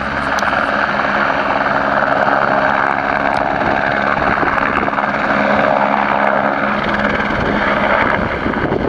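AS350 Écureuil light turbine helicopter lifting off from snow and flying away, rotor and turbine running loud and steady. Its low, steady engine tones fade out near the end as it pulls away.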